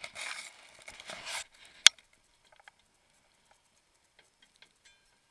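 Rustling and scraping for about a second and a half, then a single sharp knock about two seconds in, followed by a few faint ticks.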